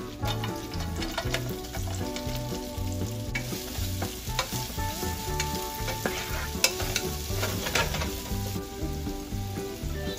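Sliced onions sizzling as they fry in hot oil in a nonstick pan, stirred with a wooden spatula that scrapes and clicks against the pan. The loudest click comes about two-thirds of the way through.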